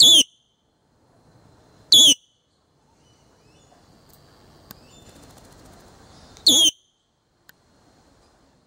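A green parakeet gives three loud, harsh screeches, each about a third of a second long. The first comes right at the start, the second about two seconds later and the third some four and a half seconds after that.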